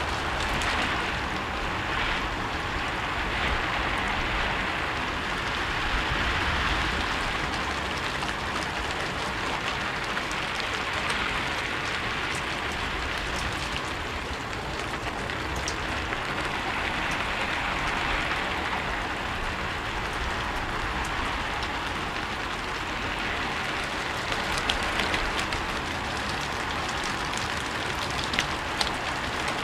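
Steady rain falling on a rooftop: an even hiss that swells and eases slowly, with scattered louder drips ticking, several of them near the end.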